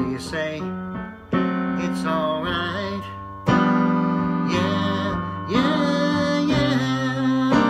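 A man singing a slow ballad over sustained electric piano chords, a new chord struck about every two seconds.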